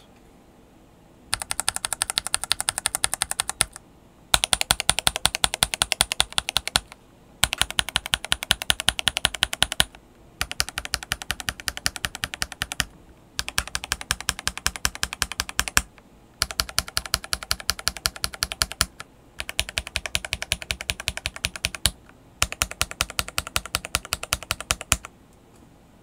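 Linear mechanical keyboard switches under clear plastic keycaps, pressed rapidly so they clack as they bottom out and spring back. The switches are a Gateron Milky Yellow and KTT Mint, Kang White, Strawberry, Red Wine, Grapefruit, Peach and Sea Salt. There are eight bursts of quick presses, each about two and a half seconds long, with short pauses between them.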